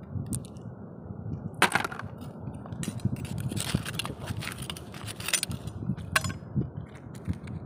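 A few sharp clicks and scrapes of hard shell and coral stone as sea snails are picked off a coral rock, over a steady low rumble.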